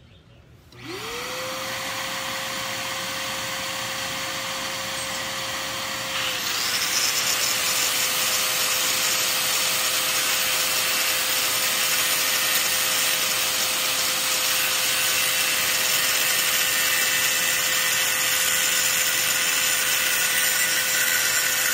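Electric angle grinder starting about a second in and running up to a steady whine, then cutting into floor tile from about six seconds on to remove a broken tile: the whine dips slightly under load and a harsh grinding hiss is added.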